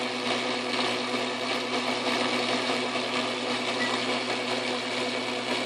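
Craftsman Atlas metal lathe running steadily, its tool bit taking a cut along a black steel pipe: an even motor-and-drive hum with the hiss of the cut.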